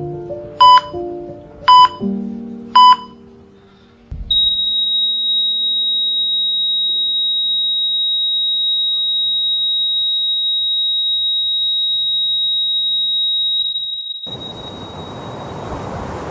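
Hospital heart monitor beeping about once a second over soft music; the beeps stop about three seconds in. After a low thud, the monitor sounds one continuous high flatline tone for about ten seconds, signalling the patient's heart has stopped. Near the end a rushing noise like surf takes over.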